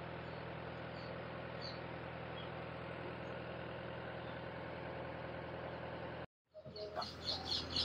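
Engine of a utility truck with a hydraulic aerial-lift bucket, idling steadily. It cuts off suddenly about six seconds in.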